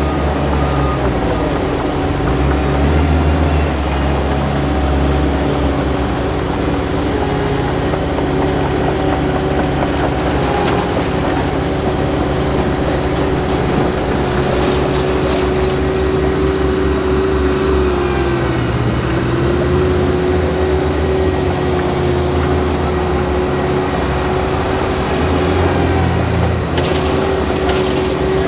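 Heavy diesel road-works machinery at an asphalt paving job running steadily, a low engine rumble under a constant droning tone that dips briefly about two-thirds of the way through.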